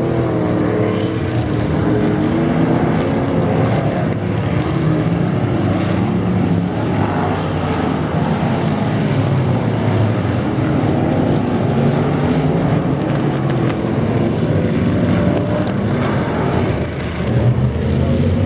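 Stock car V8 racing engines running at speed, their pitch rising and falling with the throttle.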